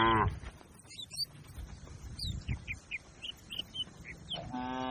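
A cow's moo trails off at the start, then small birds chirp in short high notes, and another cow starts a long moo near the end.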